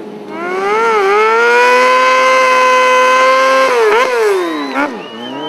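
Sport motorcycle engine revved hard during a smoky rear-tyre burnout. The revs climb about a second in and are held steady and high. Near the end they drop, are blipped up twice and fall away.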